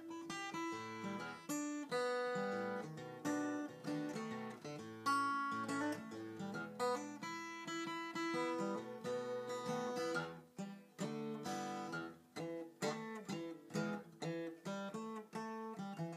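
Solo steel-string acoustic guitar played fingerstyle: a run of separately plucked melody notes over bass notes, without singing.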